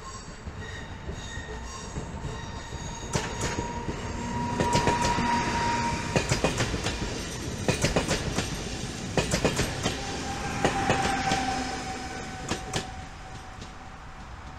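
Electric multiple-unit passenger train rolling past close by: its wheels click in quick clusters over rail joints. A high steady wheel squeal comes in about four seconds in and again about ten seconds in.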